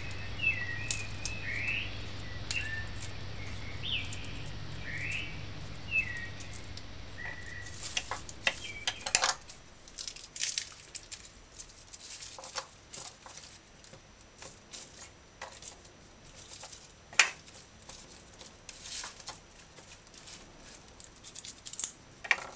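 Garlic cloves being peeled and trimmed by hand with a kitchen knife: irregular sharp clicks of the blade against the wooden counter and light crackling of papery garlic skins. A bird chirps repeatedly through roughly the first seven seconds.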